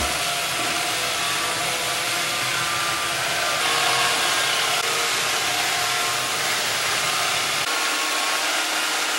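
Roomba robot vacuum running across a tiled floor: a steady whir of its vacuum motor.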